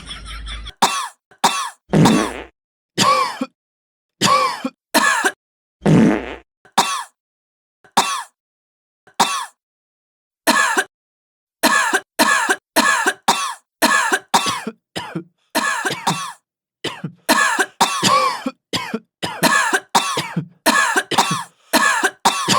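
Repeated short, croaking frog-like coughs: the comic 'frog cough'. They come singly and irregularly at first, then about twice a second through the second half, each cutting off cleanly.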